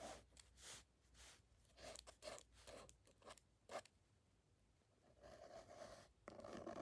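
Paper being handled and folded: a run of short, faint rustles and creases at an uneven pace, with a longer rustle near the end.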